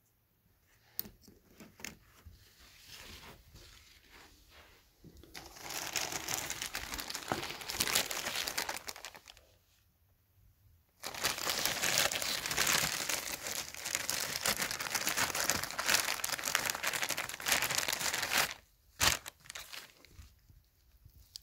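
Plastic packaging wrapper crinkling as it is handled and opened to take out a cloth vacuum bag. A few light handling clicks come first, then two long stretches of crinkling, the second starting about halfway through.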